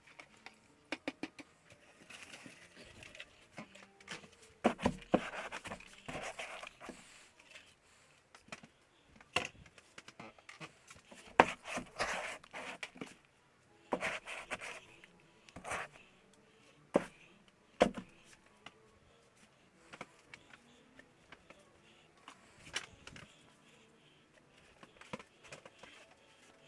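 Intermittent rough scraping and dabbing of a brush working thick acrylic paint onto a canvas, broken up by sharp knocks and clatters of brushes and paint cans being handled.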